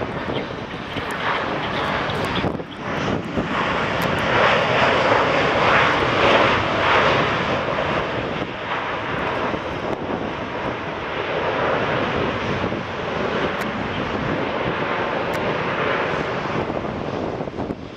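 Airliner engine noise from an aircraft passing close by, building to its loudest about four to seven seconds in, then easing to a steady level.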